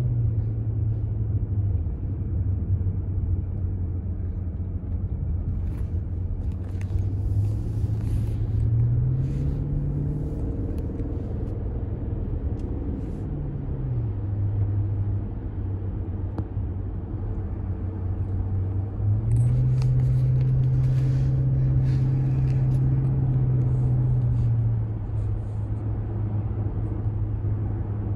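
Cabin sound of a 2001 BMW 740i's 4.4-litre V8 on the move, a low engine drone over steady road rumble. The engine note rises in pitch about ten seconds in and falls back a few seconds later, then rises again, a little louder, near the twenty-second mark and settles back down near the end.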